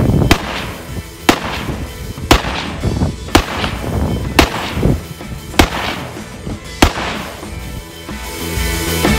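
Seven gunshots fired at a steady pace, about one a second, over background music. The music swells and carries on alone near the end.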